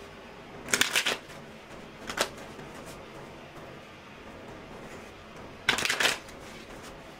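A tarot deck being shuffled in three short bursts of quick card riffling: about a second in, briefly around two seconds, and again near six seconds.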